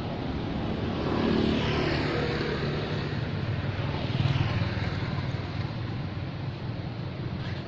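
A motor vehicle engine running with a steady low hum, growing louder about a second in and again just past four seconds.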